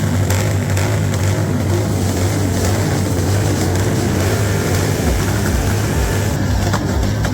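Motorcycle engine running steadily with a constant low hum, under a general outdoor din.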